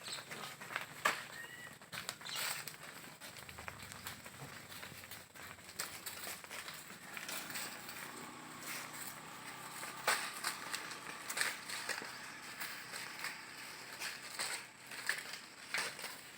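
Cattle grazing and moving through grass: scattered crackling and rustling of grass being torn and trodden.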